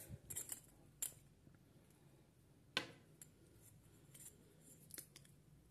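Near silence broken by a few faint clicks and light metal scrapes as an aluminium pocket flashlight is handled and its tail cap unscrewed by hand; the sharpest click comes near the middle.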